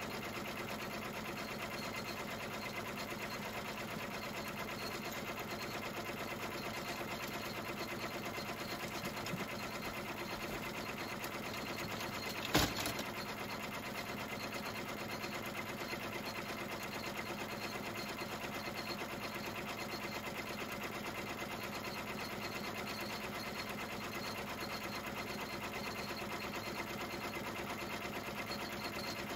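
Embroidery machine running steadily as it stitches, with one sharp click about twelve seconds in.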